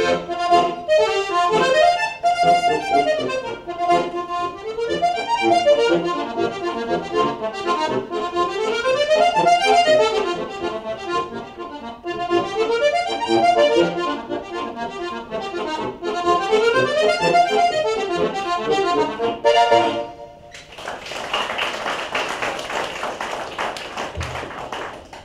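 Diatonic button accordion (Slovenian frajtonarica) playing a lively folk tune, with repeated runs that climb and fall. The piece ends about twenty seconds in and applause follows.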